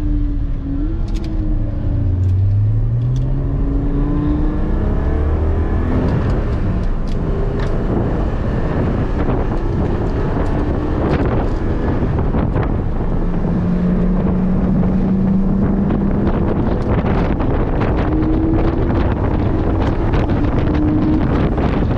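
Porsche 718 GT4's flat-six engine pulling hard on track, heard inside the cabin with heavy wind and road noise. The engine pitch climbs in the first few seconds, then wind and tyre noise largely cover the engine.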